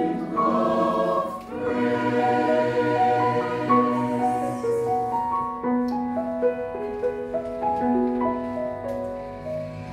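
Mixed choir singing with grand piano accompaniment, held notes moving in steps; the music gets gradually quieter over the second half.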